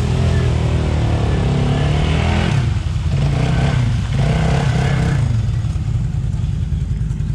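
ATV engine revving under throttle in two spells, easing back after about five seconds.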